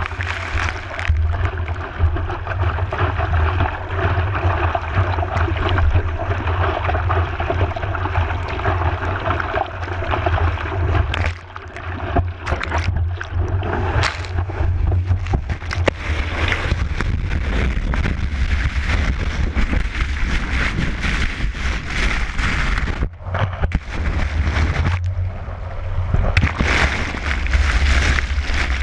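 Big-wave whitewater churning and rushing over a board-mounted action camera in its waterproof housing, with a heavy low rumble throughout. The sound thins and drops away briefly twice, once near the middle and once later on.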